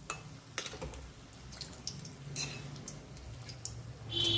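Singaras deep-frying in oil in a metal kadai, nearly done: a soft bubbling sizzle with a few sharp taps of a metal spatula against the pan.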